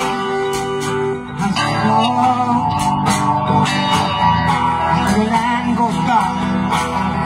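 A live band playing an instrumental passage: electric guitar and acoustic guitar over snare drum hits.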